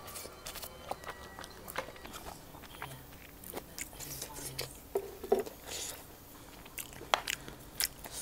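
A person eating close to the microphone: biting and chewing with a string of short wet clicks and smacks, the loudest about five seconds in.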